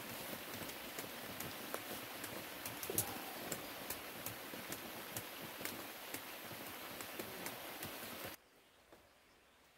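Rain falling steadily, with many sharp drops striking close by. It cuts off abruptly about eight seconds in, leaving only a faint background.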